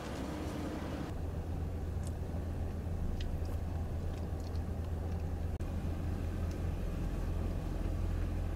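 Car driving along, with a steady low rumble of road and engine noise. The higher hiss drops away about a second in, and the sound cuts out very briefly midway.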